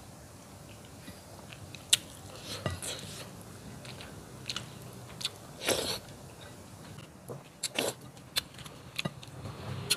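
Close-up mouth sounds of a man eating rice and curry by hand: quiet chewing broken by scattered sharp wet smacks and finger-sucking clicks, with a louder, longer one about six seconds in.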